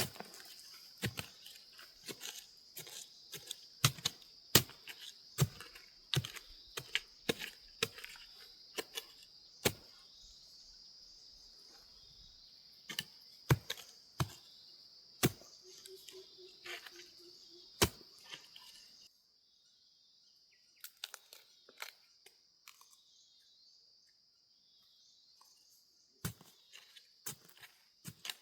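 Irregular sharp cracks and snaps, some with a tearing quality, over a steady high-pitched drone. The drone and background drop away abruptly about 19 seconds in, and the cracks thin out after that.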